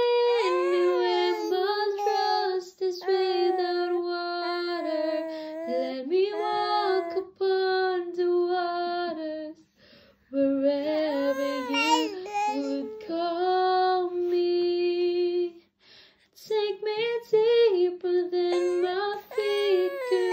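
A very sleepy infant's drawn-out vocalizing: long, wavering, held wails in a high voice, like a baby trying to sing along, broken by two short pauses partway through.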